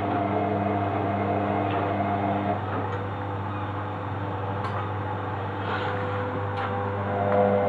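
Front-loading washing machine's motor turning the drum during the distribution tumble before spin, as the machine tries to balance the load: a steady motor hum whose tones change about two and a half seconds in and again a little past halfway.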